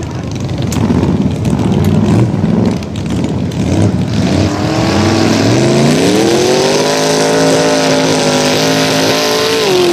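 Mud bog truck engine revving hard. The revs rise and fall unevenly at first, climb sharply about halfway through, hold at high revs, then dip slightly near the end.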